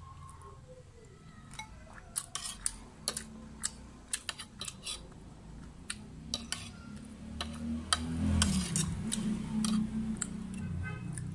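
Metal spoon and fork clinking and scraping against a ceramic bowl and plate, with many sharp clinks over several seconds. A low rumbling noise starts about eight seconds in.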